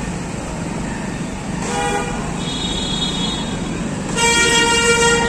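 Vehicle horns honking in busy road traffic over steady engine and road noise: a short honk about two seconds in, a higher, thinner horn just after it, and a louder honk held for about a second near the end.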